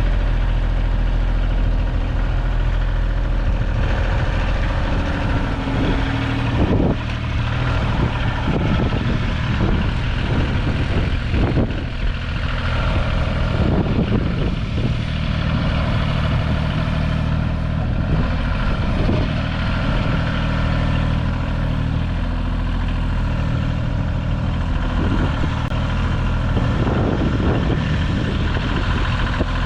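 Kioti compact tractor's diesel engine running steadily while its backhoe digs, with irregular clunks and scrapes over the engine sound through the middle stretch.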